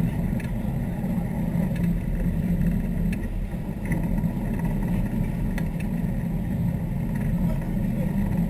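Sportfishing boat's engines running steadily underway, a low drone mixed with water noise from the wake.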